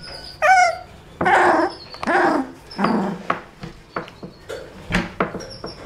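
Four-week-old puppy whining and growling: one high, wavering whine about half a second in, then a few short, rough grunts and yips, with a few sharp clicks between them.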